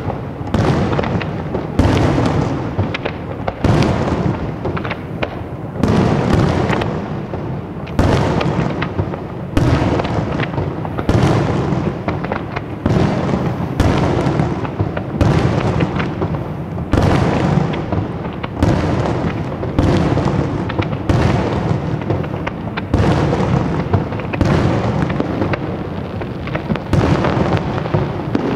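Fireworks display: aerial shells bursting in steady succession, a loud bang about every one and a half seconds, with a continuous wash of noise from smaller effects and crackle in between.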